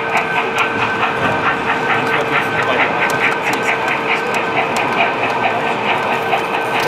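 Model railway train running on its layout: a steady electric hum with an even ticking rhythm of about three to four beats a second and scattered sharp clicks.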